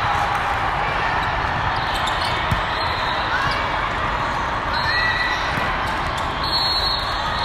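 Indoor volleyball hall din: a steady wash of players' voices and volleyballs being hit and bouncing across many courts, with one sharp smack of a ball about two and a half seconds in.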